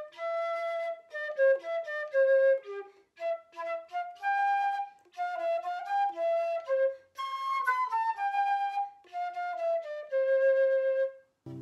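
Solo silver concert flute playing a short tune in separate notes, ending on a long held note near the end.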